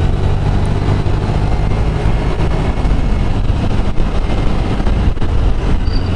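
Scooter riding at speed: wind buffeting the microphone in a loud, uneven rumble over the running engine and road noise.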